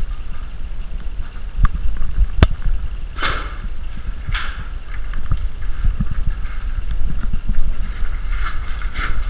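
Low rumble on the camera's microphone, broken by a few sharp clicks and several short scuffing rustles.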